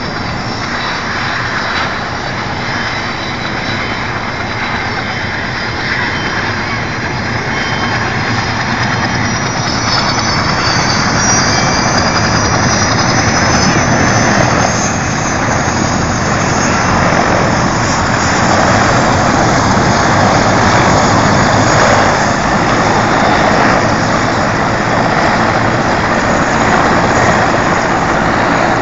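Helicopter running close by: a continuous rush of engine and rotor noise with a thin, high turbine whine above it, slowly growing louder.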